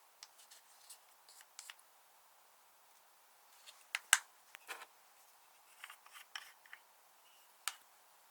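Slime being worked by hand: scattered sticky clicks and pops in small groups, the loudest about four seconds in.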